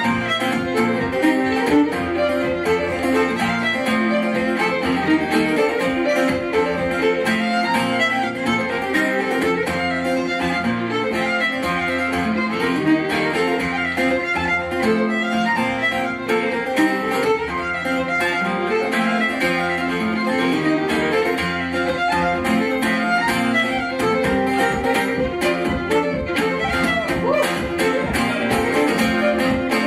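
Fiddle and acoustic guitar in DADGAD tuning playing a traditional Scottish/Cape Breton tune together, the fiddle carrying the melody over strummed guitar accompaniment.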